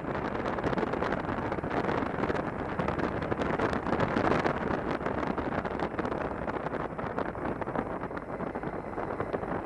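Wind rushing over a helmet-mounted camera microphone while a motorcycle rides along, its engine running steadily beneath the wind noise.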